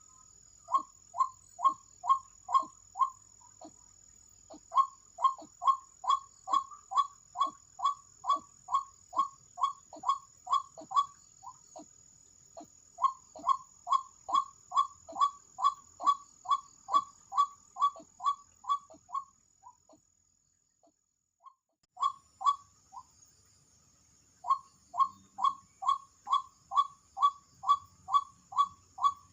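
White-breasted waterhen calling: a long series of short, loud, repeated notes, about two a second, in bouts, with everything stopping for a couple of seconds about two-thirds through. A thin, steady, high insect trill runs behind the calls.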